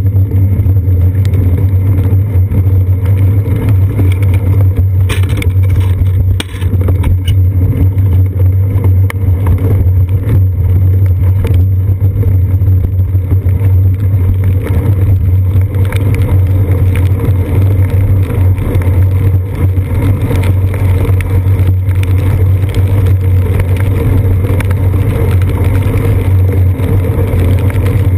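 Steady low rumble of a bicycle riding on wet pavement, picked up through a seat-post-mounted GoPro Hero 2 housing: wind and road vibration, with a few knocks about five to six seconds in.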